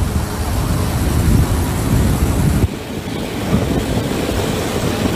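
Traffic noise recorded from a moving vehicle, with wind buffeting the microphone as a loud, uneven low rumble. About two and a half seconds in the rumble and hiss drop suddenly, then carry on more softly.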